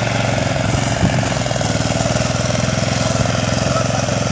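Tractor engine running steadily with a fast, even putter.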